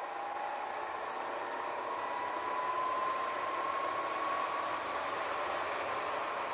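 Go-kart engine pulling hard under acceleration, its pitch rising slowly and steadily as the kart gathers speed, under a steady rush of wind noise.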